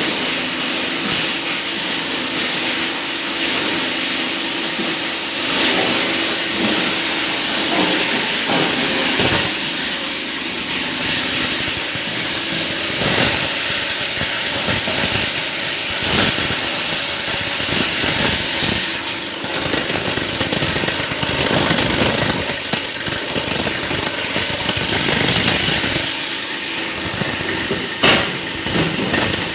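Heavy-duty plastic scrap grinder running and chopping plastic scrap: a loud, continuous machine noise broken by many irregular cracks and knocks as pieces are cut by the blades, with a steady motor hum in the first few seconds.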